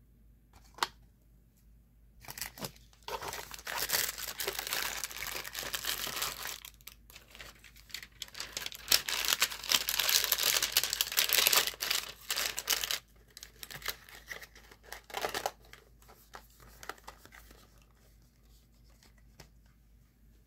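Plastic wrapping of trading-card packaging crinkled and torn, in two long spells, the second louder, after a single click.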